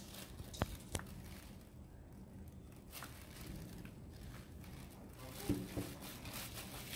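Faint handling of a plastic acrylic paint tube over newspaper while paint is squeezed into a paper cup: a few light clicks and soft rustles.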